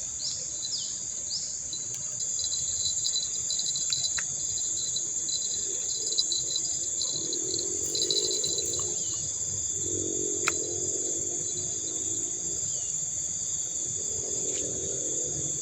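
Steady high-pitched chirring of insects, crickets or cicadas, with a few short falling bird chirps near the start.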